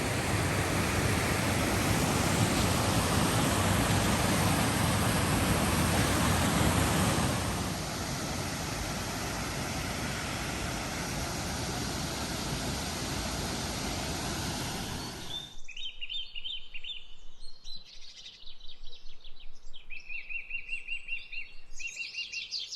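Steady rush of falling water from a waterfall, which cuts off abruptly about two-thirds of the way through. Small birds then chirp and trill in quick runs of repeated notes.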